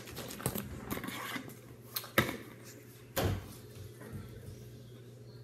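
Plastic drink bottles being handled and set down on a counter: a few sharp knocks and clatters, the loudest about two seconds in.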